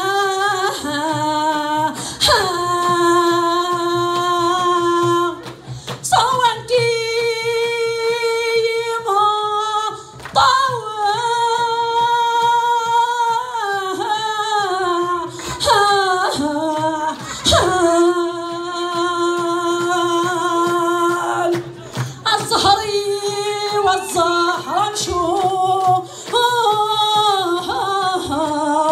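A woman singing an unaccompanied Kabyle urar song into a microphone, in long held notes with ornamented glides, pausing briefly for breath between phrases.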